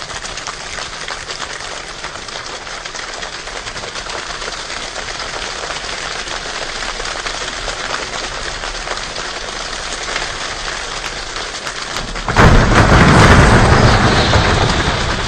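A choir imitating a rainstorm with body percussion: a dense patter of fine clicks builds gradually like rain getting heavier. About twelve seconds in it jumps suddenly to a much louder, deep rumbling downpour as the thunder, then eases off near the end.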